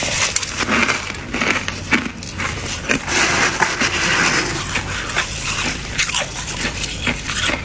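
Thick, crunchy freezer frost being scraped, a run of gritty scrapes broken by many small cracks and crunches.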